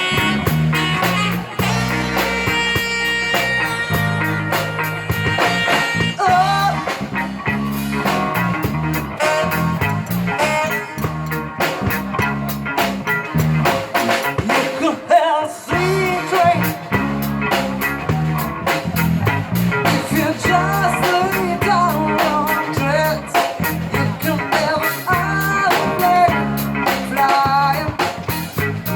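A rock song with a male or female singing voice over electric guitar, bass and a drum kit; the vocal line comes in about six seconds in.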